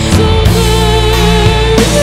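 Heavy metal music with a drum kit and bass under a long held note, moving to a new chord near the end.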